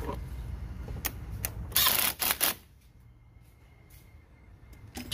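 Hand handling noise: a couple of sharp clicks, then a loud scraping, rustling burst about two seconds in, over a low rumble that stops soon after.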